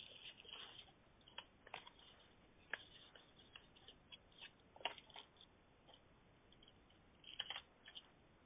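Near silence on a telephone line, with faint scattered clicks and short rustles, the loudest about five seconds in and another cluster near the end.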